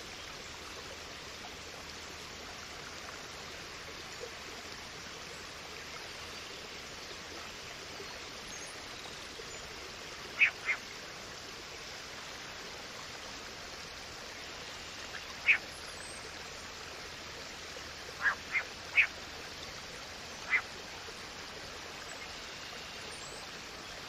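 A few short, sharp waterbird calls over a steady hiss: a pair, then a single, then three in quick succession and one more.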